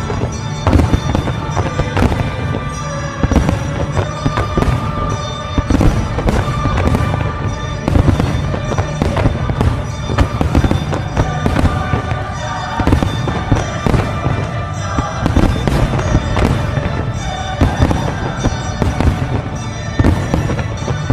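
Fireworks finale: aerial shells bursting in a dense, continuous run of booms, several a second, with music playing alongside.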